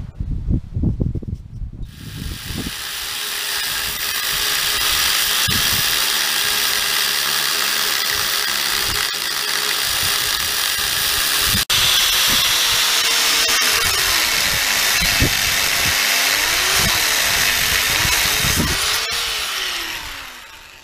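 Angle grinder with an abrasive cut-off disc cutting through a 50 mm round steel bar: a loud, steady, hissing grind starts about two seconds in, with the motor's pitch wavering up and down as it loads. There is a momentary break about halfway, and the grinder winds down near the end.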